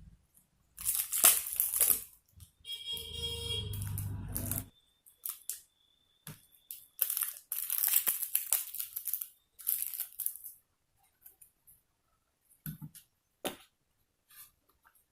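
Food packaging being crinkled and torn open in several bursts. A short buzzing, grating sound comes a few seconds in, and a few light clicks come near the end.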